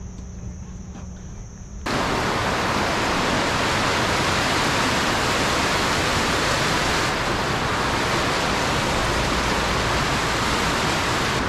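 Water pouring over a river dam: a loud, steady rushing that starts suddenly about two seconds in. Before it there is a faint, steady chirring of insects.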